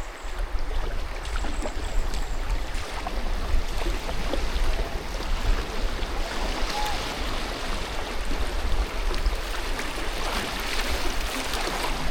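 River water rushing steadily around a moving kayak, with a low rumble underneath and a few faint chirps.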